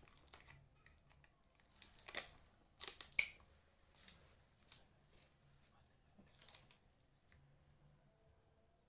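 Adhesive tape being pulled and torn off a desk tape dispenser and pressed onto a thin paper kite sail, with the paper crackling under the hands: a few short rustling tears, the loudest about two and three seconds in, then only faint rustles.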